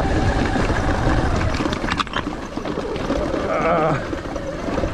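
Sur-Ron electric dirt bike climbing a loose, pebbly hill: a dense rumbling of tyres churning over stones, with a sharp clatter about two seconds in and a brief wavering tone near four seconds.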